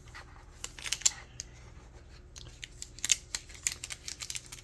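Packaging being handled during an unboxing: a scatter of light, sharp clicks and taps, a few about a second in and a busier run from about three seconds on.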